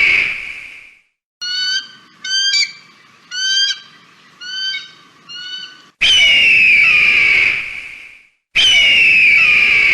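Hawk screams: a long, hoarse, slightly falling scream fades out at the start, then six shorter rising-and-falling calls, then two more long screams, one about six seconds in and one near the end.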